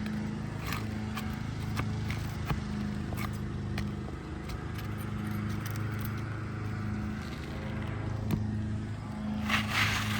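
An old asphalt roof shingle being pried and pulled free: scattered scrapes and sharp clicks, with a louder rustling scrape near the end. All of it sits over a steady low hum.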